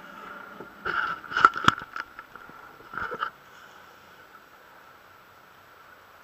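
Sharp knocks and scrapes in a canoe as a caught catfish is handled and lowered over the side for release: a cluster about a second in and another short clatter at about three seconds.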